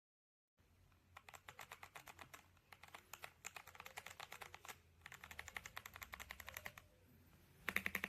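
Typing on mechanical keyboard switches: runs of rapid key clacks with short pauses between them, quiet at first and much louder near the end.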